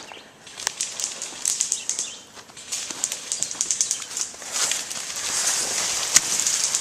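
Airsoft guns firing: quick runs of sharp, high clicks, growing into a denser spray of shots with rustling over the last couple of seconds.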